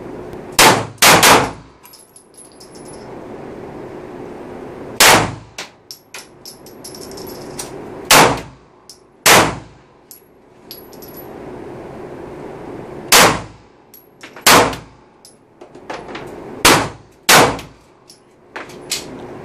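Pistol shots echoing in an indoor concrete shooting range, a Glock 19 and a second handgun firing about ten single shots at uneven intervals, some in quick pairs. Light metallic clinks of ejected brass cases fall between the shots.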